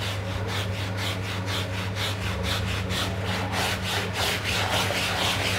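A hand scrubbing a wet, soapy Mahindra Thar canopy fabric in quick back-and-forth strokes, about four or five a second, over a steady low hum.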